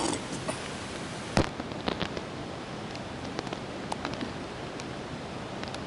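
Steady rain with scattered sharp ticks of drops. One louder knock comes about a second and a half in, with a few more ticks just after.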